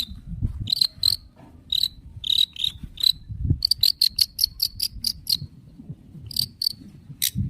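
Long-tailed shrike (cendet) giving short, harsh, high calls in groups, with a fast run of about nine calls in quick succession about halfway through.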